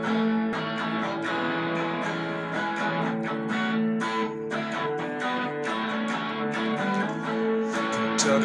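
Electric guitar strumming chords in a steady rhythm, the chords ringing on between strokes.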